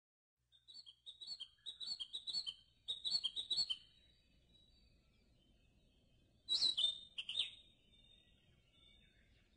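Small birds chirping: a quick run of short high chirps in the first few seconds, then a louder pair of downward-sliding calls about seven seconds in.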